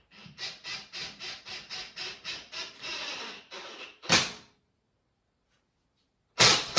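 A screw being driven into a wall plug, a steady run of about four turning strokes a second; the plug then fails to hold. A sharp short noise follows about four seconds in, and a louder rasping burst of about a second near the end.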